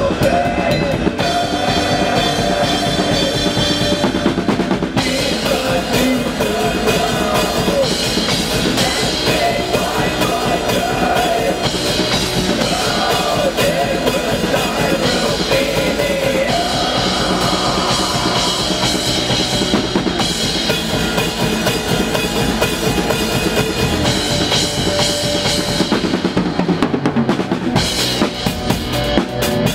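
Drum kit played fast and dense in a post-black-metal song: kick drum, snare and cymbals driving a rapid beat under the rest of the band.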